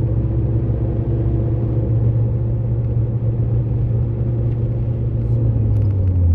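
Honda car engine running with a loud, steady low drone through a damaged exhaust, dropping slightly in pitch near the end.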